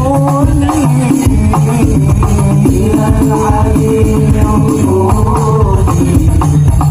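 Hadroh ensemble playing: frame drums and jingling tambourines keep a dense, driving rhythm under sung sholawat melody.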